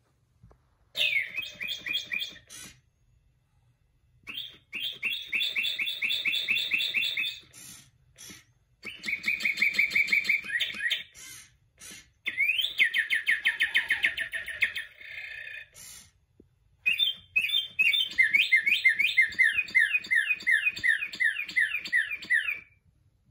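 Gemmy Singing Cardinal animatronic toy playing recorded birdsong through its speaker: about five phrases of rapid repeated chirps, with pauses of about a second between them. The last and longest phrase is a run of quick downward-slurred notes.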